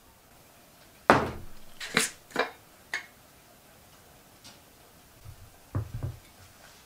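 Kitchenware handled on a steel countertop: a sharp knock about a second in, a few lighter clicks over the next two seconds, then two low thumps near the end.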